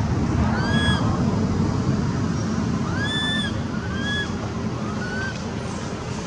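Newborn long-tailed macaque giving four short, high-pitched calls, each rising then falling in pitch, over a steady low rumble.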